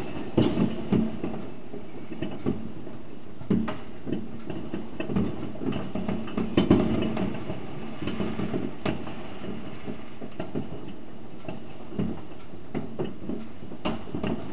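Fireworks and firecrackers going off in the distance: an irregular run of bangs and cracks, several a second at times, with the loudest cluster about halfway through.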